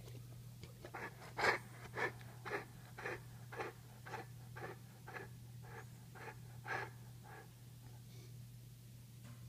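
Pit bull–mastiff cross panting with its mouth open: about two breaths a second in an even rhythm, stopping a couple of seconds before the end.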